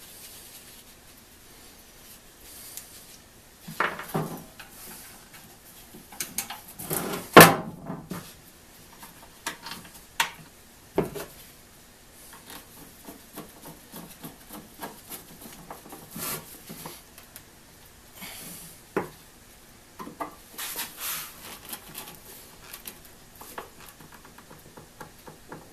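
Irregular workbench handling noise: knocks, clicks and scrapes of a small hand tool and a wooden saw handle against a wooden bench top, the loudest a sharp knock about seven seconds in.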